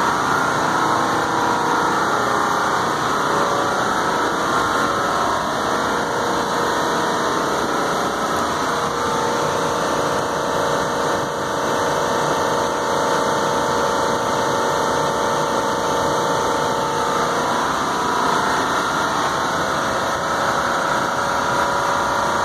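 Big 100-ton split-system air-conditioning compressors running in their machine room: a loud, steady mechanical hum with a few held tones, one of them growing stronger about nine seconds in.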